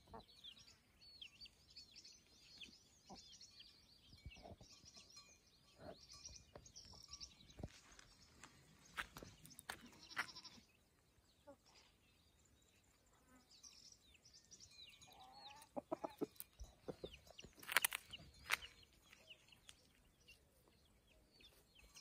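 Quiet farmyard ambience: small birds chirping in the first half, scattered light clicks, and a short farm-animal call a little past the middle. Soon after come two sharp clicks, the loudest sounds.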